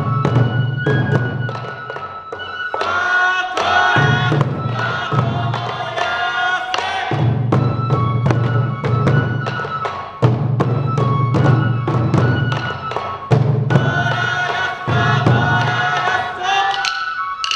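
Sansa odori folk music played live: taiko drums beat a steady rhythm while a group sings two phrases, one about three seconds in and one about thirteen seconds in.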